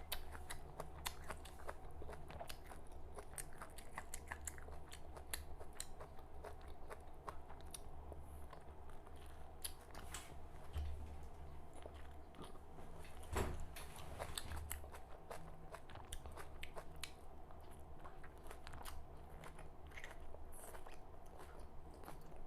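Close-miked chewing and biting of raw red amaranth leaves: a continuous run of small crunches and clicks, with one louder knock a little past halfway. A steady low hum sits underneath.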